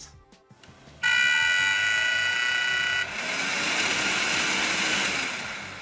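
12 V blower fan driven by PWM from a 3D printer mainboard MOSFET. About a second in it starts at around 40% power with a high whine of several steady tones. About two seconds later it jumps to full power, a steady rush of air, and near the end it is switched off and spins down.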